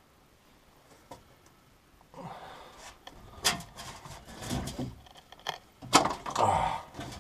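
Irregular clanks, knocks and rattles of hand work under a pickup truck, starting about two seconds in, with a sharp knock near the end.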